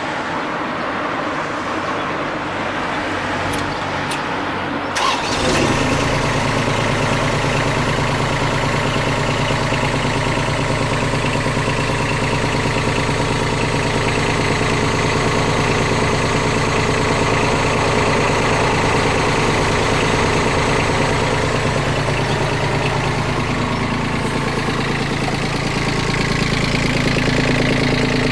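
Komatsu PC10-7 mini excavator's diesel engine. About five seconds in, after a click, it comes up into a steady, even run and keeps running.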